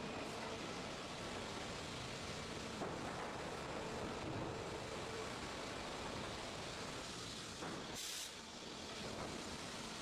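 Steady mechanical running noise of a sawmill's saw and conveyor line. About eight seconds in there is a brief high hiss and a short dip in level.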